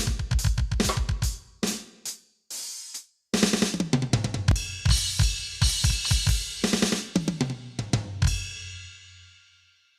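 Sampled drum sounds from an Aroma TDX-16S electronic drum kit's sound module: fast kick-drum strokes, snare, toms and hi-hat in quick fills. The sound breaks off briefly about two and a half seconds in, resumes densely, and ends on a crash cymbal that rings out and fades.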